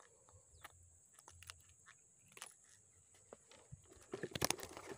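Faint clicks and rustling as a small snakehead is handled and unhooked from a lure, with a louder cluster of clicks and rustles about four seconds in.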